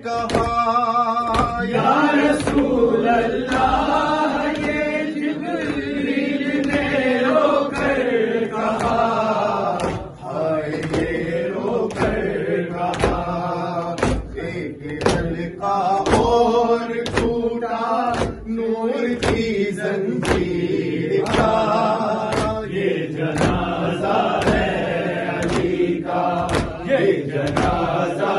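A male reciter chanting an Urdu noha (mourning lament) into a microphone, with a group of men's voices joining in. Sharp chest-beating slaps (matam) keep a steady beat under the chant.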